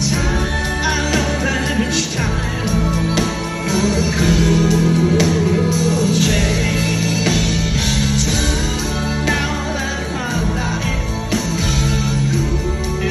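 Live rock band playing through a concert hall's PA: electric guitars, keyboards, bass and drums, with long held bass notes under the melody.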